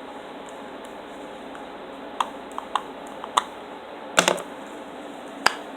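Small sharp clicks and taps of a makeup container, likely a powder compact, being handled and opened: a quick run of light clicks, then a louder double click and one last click near the end, over a steady low hiss.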